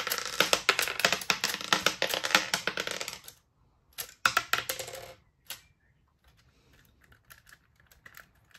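LEGO Technic blowback pistol mechanism cycling on full auto and ejecting plastic shells: a fast run of plastic clacks for about three seconds, then a second shorter burst a second later. After that come only faint clicks of the plastic parts being handled.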